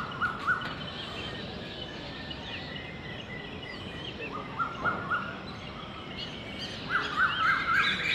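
Birds calling in series of short rising chirps, a cluster at the start, another about four seconds in and more near the end, over a steady low rumble of the express train's coaches rolling away.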